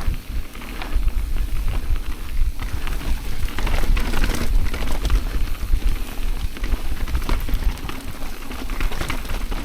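Mountain bike riding down rough, rocky trail: tyres rolling over dirt and rock with a dense, irregular clatter of knocks and rattles from the bike, over a low rumble of wind and vibration.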